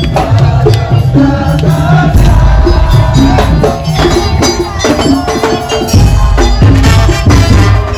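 Music from a Madurese daul percussion band: drums and a heavy bass beat under a melody line.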